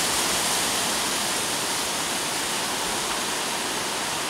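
Steady, even rushing hiss with no distinct events in it.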